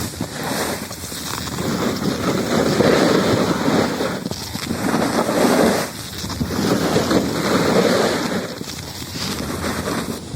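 Skis sliding and carving on snow, a hiss that swells and drops back several times through a series of turns, with wind buffeting the phone's microphone.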